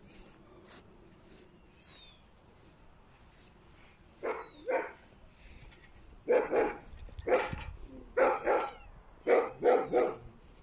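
A dog barking, short sharp barks in twos and threes starting about four seconds in and carrying on to the end.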